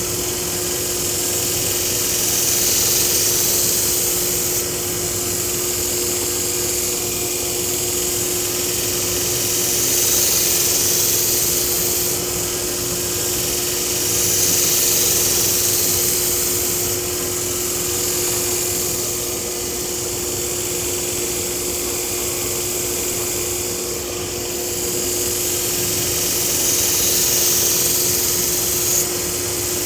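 Belt grinder running with a steady motor hum while a Takeda nakiri's steel blade is ground on the abrasive belt. The high grinding hiss swells and fades every few seconds as the blade is passed across the belt.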